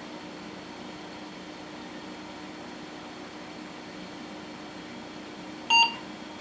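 Steady fan hum, then near the end a single short beep from the Gateway 2000 P5-133 XL's PC speaker as it restarts: the POST beep, signalling that the power-on self-test passed.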